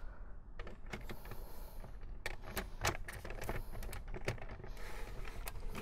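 Plastic shell halves of a Nerf SlingFire blaster being fitted together and pressed closed by hand: a string of irregular light plastic clicks and taps.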